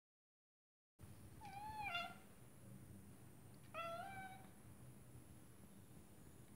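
Scottish Fold cat giving two short meows a couple of seconds apart, the first wavering up and down, the second rising and then held, as she watches birds through a window.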